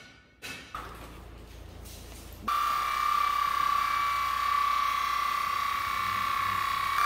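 Corded electric horse clippers start abruptly about two and a half seconds in and run with a steady, high-pitched buzz as they clip the horse's forelock. A short knock and a low hum come before the clippers start.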